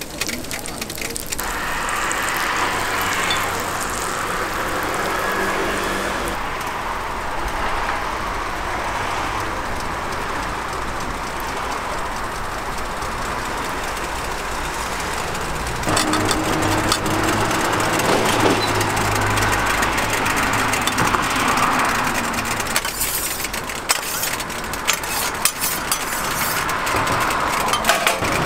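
Street-stall background noise: a steady din of traffic and city sound that shifts abruptly several times as the shots change.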